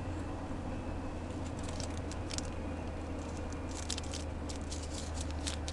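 Steady low engine drone and road noise inside a van's cabin as it drives on the motorway, with scattered small clicks and rattles, a cluster about two seconds in and more near the end.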